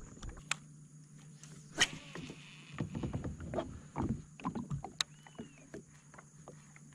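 Knocks and clicks of a paddle and fishing rod being handled against a plastic fishing kayak as the angler stows the paddle and casts. A sharp click comes about two seconds in, and a cluster of duller knocks follows around the cast.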